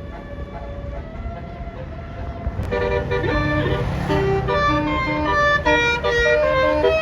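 Basuri telolet bus horn playing a quick multi-note tune, the notes changing every fraction of a second; it gets much louder about three seconds in. A bus engine runs underneath.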